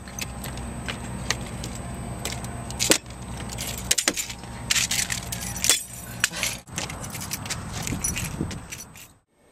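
A bunch of keys jangling, with sharp clicks and rattles. A low steady hum runs under it for about the first four seconds.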